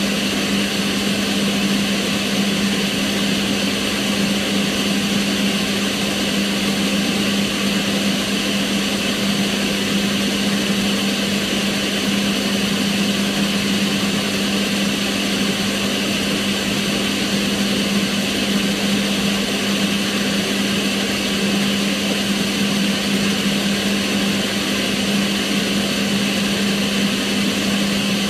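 Kitchen range hood extractor fan running steadily: a constant motor hum under an even rush of air.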